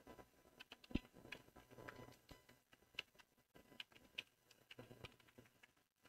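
Faint computer keyboard typing: irregular key clicks, with one louder click about a second in.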